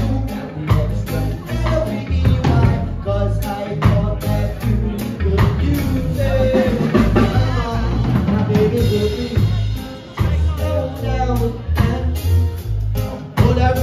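Live band playing, the drum kit prominent with a steady beat, over electric and acoustic guitars.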